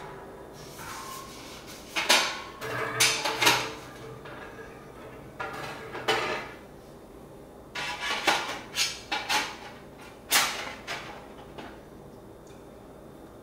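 Stainless steel brewing parts, the Anvil Foundry's malt pipe and its perforated plate, clanking and scraping as they are handled and fitted together. The clanks come in clusters with short metallic ringing: about two to three and a half seconds in, around six seconds, and again from eight to eleven seconds.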